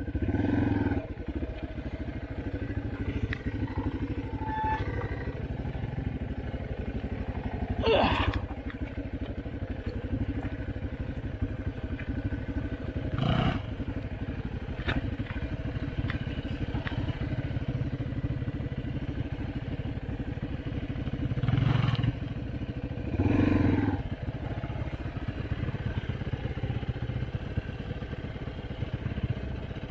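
Dirt bike engine running at low speed in low gear, swelling with throttle blips as it crawls over rocks, with a few sharp knocks and clatter from rocks and the bike.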